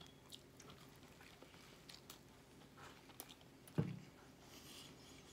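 Faint, close-up chewing of a Filet-O-Fish sandwich: small wet mouth clicks scattered throughout, with one louder short low thud a little under four seconds in.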